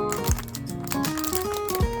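Background electronic music: held synth notes that change pitch, with two deep falling kick-drum hits about a second and a half apart.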